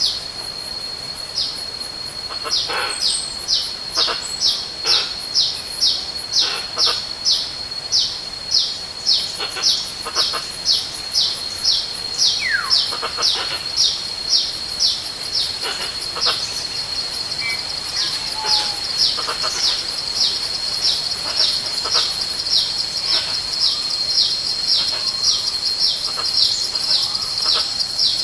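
A forest bird calling over and over with short, high, falling whistled notes, about two to three a second, without a break. Under the calls runs a steady high insect whine that drops away near the start and returns in the second half.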